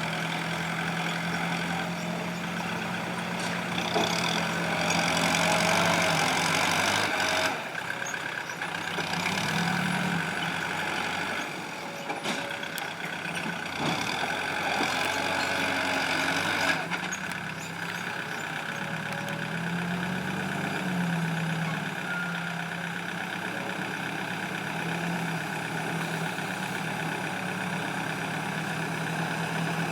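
Diesel engines of an excavator and a dump truck running steadily at work, the engine note rising and falling now and then under load.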